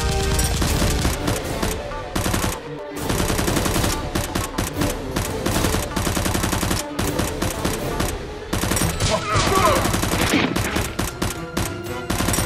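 Rapid bursts of automatic gunfire sound effects, with short breaks between bursts.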